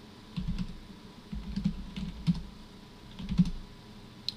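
Typing on a computer keyboard in three short bursts of keystrokes, as for brief shell commands each ended with Enter, then one sharp key click near the end.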